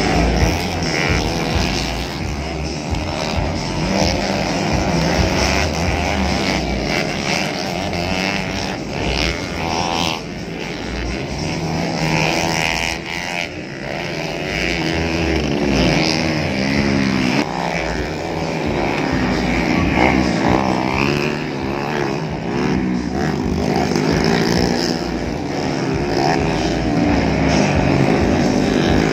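Several dirt-bike engines racing on a motocross track, their pitch rising and falling over and over as riders open and close the throttle through the course.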